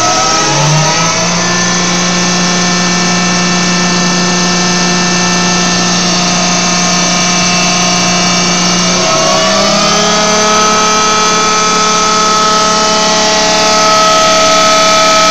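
Diesel injection pump test stand running a VE distributor injection pump with a steady mechanical whine. The pitch rises twice, about a second in and again about nine seconds in, as the drive speed is raised.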